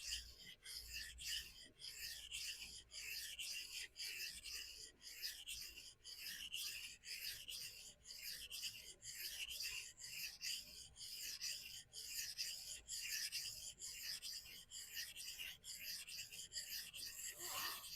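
A knife blade of CPM-S30V steel stroked back and forth on a vitrified diamond sharpening stone: a steady gritty scraping of quick strokes, about two a second. The bevel is being ground down to even out a severely asymmetric edge.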